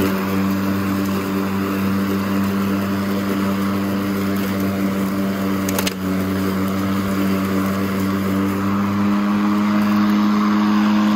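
Worx Nitro 40V cordless push lawn mower's battery-powered electric motor and blade running steadily while cutting grass: a steady whine with a hiss of cut grass. A brief sharp tick about six seconds in.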